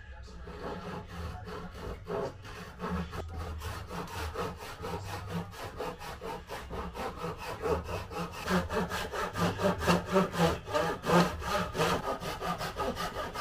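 Japanese ryoba pull saw cutting through a wooden board in steady, rhythmic back-and-forth strokes, getting louder from about eight seconds in.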